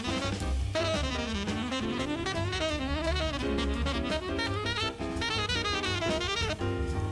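Jazz saxophone playing quick runs that wind up and down, over a backing of drum kit and bass.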